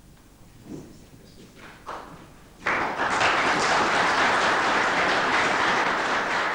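An audience applauding, breaking suddenly into steady clapping about two and a half seconds in after a quiet start.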